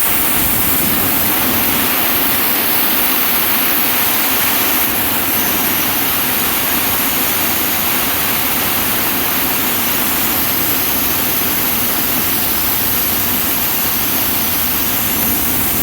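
1 HP air compressor unit making a loud, steady rushing noise that starts abruptly just before and holds level without change.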